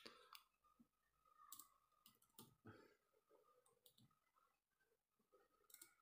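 Faint, scattered clicks of an Acer Spin 3 laptop's keys and touchpad being pressed, about a dozen light taps spread through otherwise near silence.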